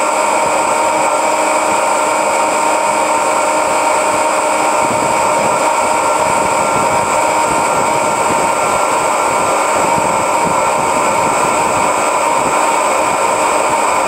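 John Deere 9600 combine running while harvesting soybeans: a loud, steady machine drone with a high whine and several held tones.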